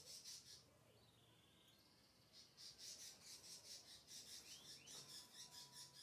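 Lovebird chattering in fast runs of high, harsh chirps at about five a second: a short burst at the start, then a longer unbroken run from about two seconds in.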